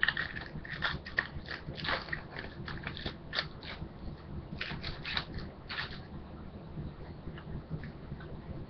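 Foil trading-card pack wrapper crinkling and crackling as it is handled and opened by hand, in a quick run of sharp crackles that thin out after about six seconds.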